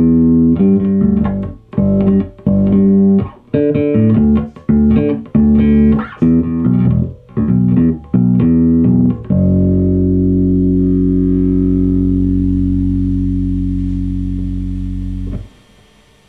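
1979 Fender Precision Bass played solo: a run of plucked notes, then a final note held and ringing for about six seconds until it is muted suddenly, leaving a faint hiss.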